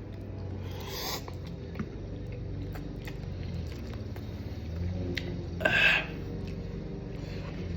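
Eating spicy ramen noodles: small scrapes and clicks of a utensil and mouth noises, with a louder short noise about six seconds in, over a steady low hum.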